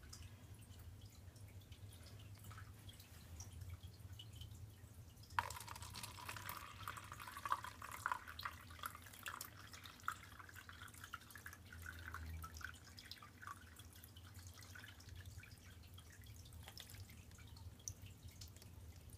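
Water poured into a LEGO model, starting suddenly about five seconds in, trickling and splashing for roughly ten seconds, then thinning to scattered drips. A faint steady low hum runs underneath.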